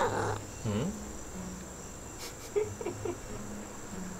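A cat gives a short grumbling "nnn-nnn" vocalization, followed just under a second later by a second brief call that rises and falls in pitch. A steady high thin whine runs underneath.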